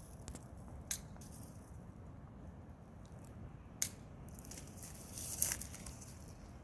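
Pruning shears snipping apple-tree branches: two sharp snips about three seconds apart, then a louder rustle of twigs and leaves around five seconds in.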